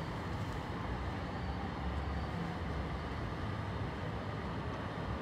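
Steady, low rumbling background noise with no distinct events.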